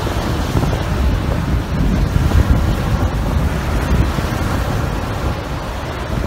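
Heavy wind buffeting the microphone in a gusting low rumble, over the steady wash of waves breaking on the beach.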